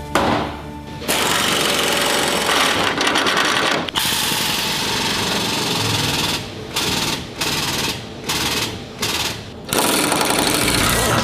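A fast-hammering air tool on metal bodywork, such as an air chisel or pneumatic body saw. It runs steadily from about a second in, then goes in short bursts with brief pauses in the second half. Background music plays under it.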